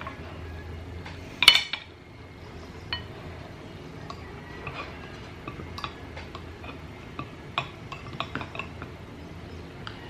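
Kitchen dishes and utensils clinking: one loud ringing clink about a second and a half in, then scattered lighter taps and clicks, over a low steady hum.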